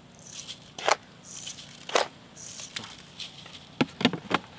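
Granulated sugar rustling as it is scooped into a plastic mixer-grinder jar, with sharp knocks of the jar and spoon. A quick cluster of clicks near the end as the jar is set onto the mixer base.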